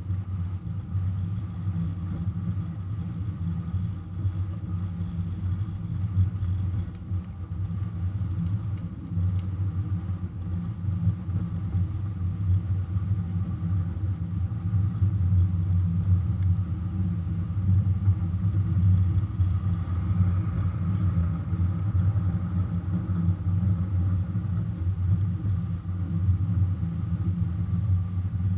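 Engine of a ridable miniature-railway locomotive running steadily under way, heard close up from on top of its hood: a low rumble that grows a little louder about halfway through.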